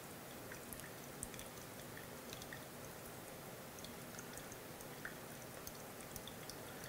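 Faint trickle of water poured in a thin stream onto wet coffee grounds in a stainless steel pour-over dripper, with small scattered dripping ticks.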